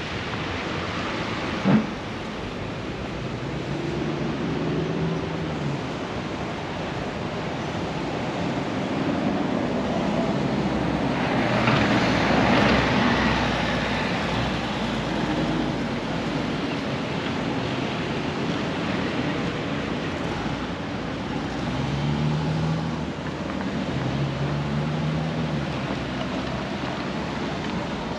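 City street ambience: a steady wash of traffic noise, swelling as a vehicle passes about twelve seconds in, with a single sharp knock about two seconds in.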